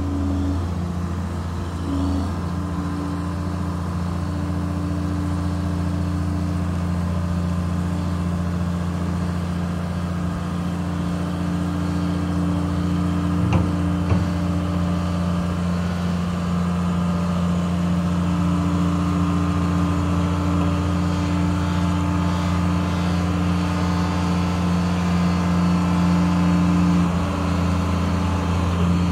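An old John Deere excavator's 404 six-cylinder diesel running steadily as the machine tracks along, growing slowly louder as it comes closer. A couple of short clanks sound about halfway through.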